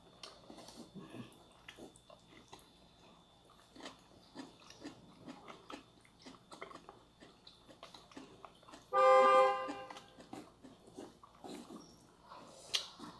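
Quiet mealtime sounds: chopsticks clicking and tapping on plates and bowls, with soft chewing. About two-thirds of the way through, a short steady pitched tone sounds for about a second, the loudest thing here.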